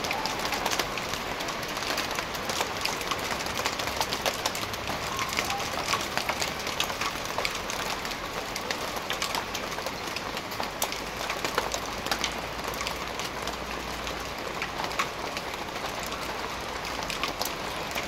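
Hailstorm: a steady hiss of falling rain and hail, broken by many sharp ticks of hailstones striking the street and nearby surfaces.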